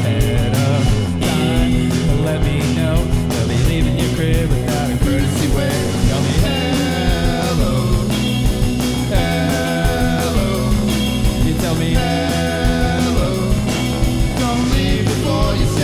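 Rock music with guitar, a steady drum beat and a singing voice, played by a band.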